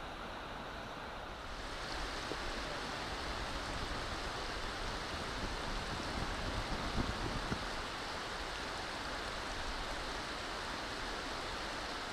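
Steady rushing of flowing water from a river or falls. It gets a little fuller about a second and a half in, with a few low thumps around the middle.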